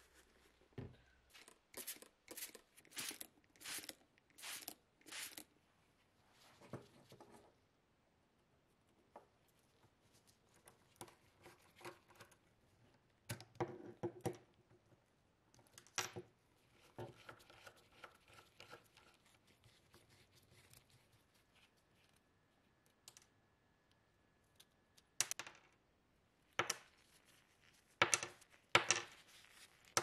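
About six short spray bursts from a trigger bottle of tyre shine squirting onto small rubber tyres, then scattered clicks and scrapes of small rusty metal parts being handled with pliers. Near the end, metal parts clatter sharply onto the workbench, the loudest sounds here.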